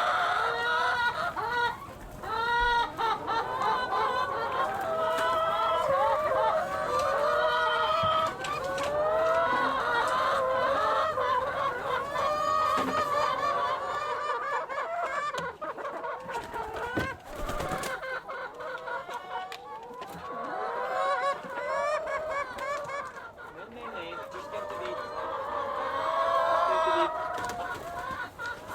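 A flock of chickens clucking, many short overlapping calls at once, thinning out for a while past the middle.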